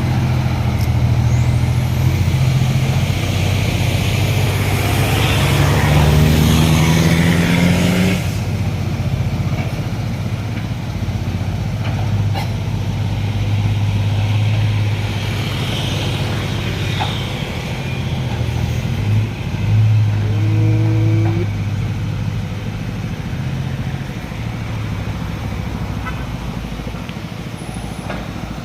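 Isuzu DECA FXZ 360 truck's diesel engine running, its revs climbing over the first eight seconds under a loud hiss that cuts off suddenly. After that the engine runs on more steadily.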